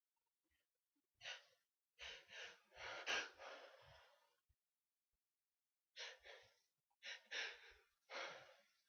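A person's gasping, catching breaths in several short bursts: the build-up to a sneeze.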